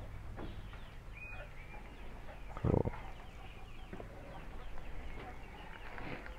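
Chickens clucking in the background, with one short dull thump a little under three seconds in, the loudest sound here.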